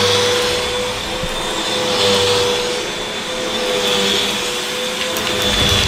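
Upright vacuum cleaner running with a steady motor whine, its sound swelling and fading about every two seconds.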